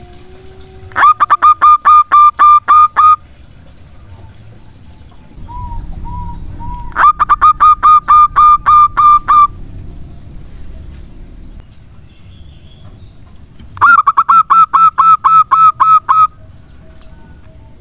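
Zebra dove (local perkutut) singing in three bursts a few seconds apart, each a rapid run of about ten short clipped coo notes.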